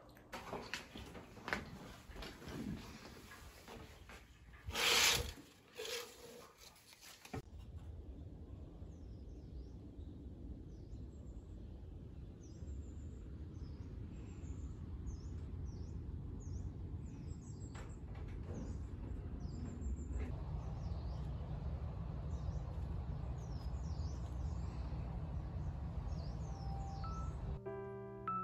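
Meal noises at a table of noodle bowls, with scattered clicks and one louder noisy burst about five seconds in. After about seven seconds, small birds chirp in many short high calls over a low steady rumble of background noise. Piano music comes in near the end.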